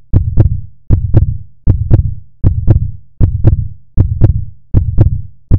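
Produced heartbeat sound: paired deep thumps, lub-dub, repeating steadily about once every three-quarters of a second.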